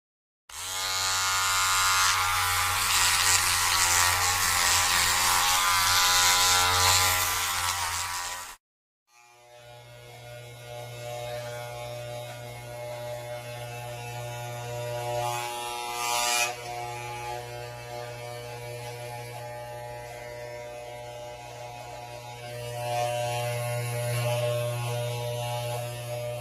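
Electric hair clippers running with a steady buzz, in two takes separated by short gaps of silence. The first is louder and hissier and lasts about eight seconds. The second is a softer, steadier hum that slowly grows louder, with a brief click about sixteen seconds in.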